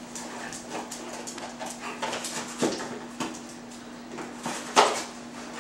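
A German shepherd ripping and chewing at a cardboard box: an irregular run of short tearing and crinkling noises, the loudest about five seconds in.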